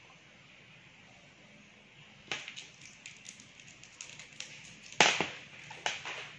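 Small plastic candy wrappers crinkling as they are handled, in irregular crackles that start about two seconds in, with the loudest crackle about five seconds in.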